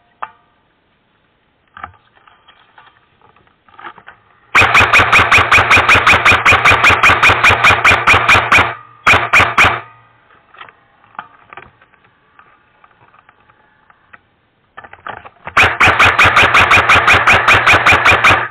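Airsoft gun fired on full auto, very close, in long rattling bursts with a motor hum under the shots: a burst of about four seconds, a short one after it, and another of about three seconds near the end.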